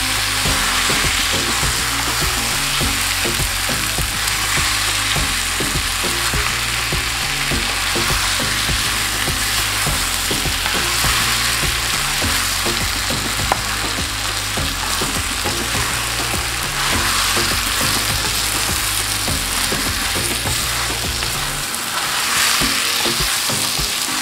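Potatoes and freshly added eggplant pieces sizzling steadily in a pan of spiced masala as they are stirred.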